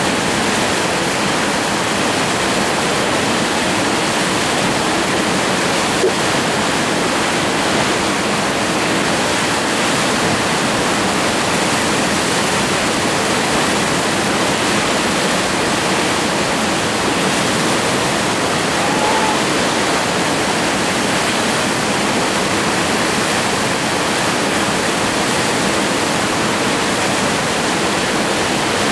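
Whitewater rapids rushing, a loud steady wash of moving water that does not let up.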